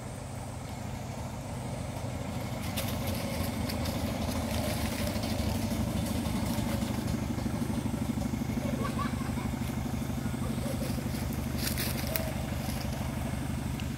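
An engine, likely a small motorbike's, running steadily as a low hum, growing louder over the first few seconds and then holding level. A few brief clicks around three and twelve seconds in.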